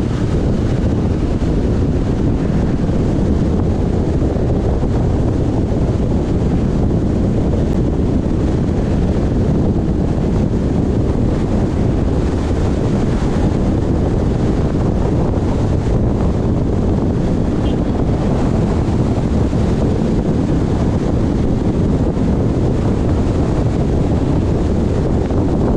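Steady low rumble of wind buffeting the microphone of a moving car, mixed with road noise.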